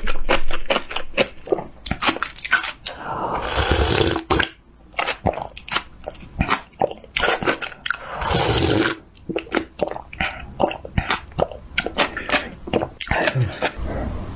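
Close-miked eating: crisp, crunchy chewing in quick, repeated bites, broken twice by longer slurps of noodle-soup broth drunk from the bowl, once about three seconds in and again about eight seconds in.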